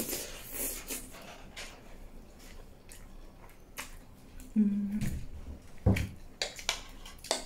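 Close-miked eating of stir-fried noodles: slurping, wet chewing and mouth smacks, with a short low hum about four and a half seconds in and a louder knock near six seconds, likely cutlery against the plate.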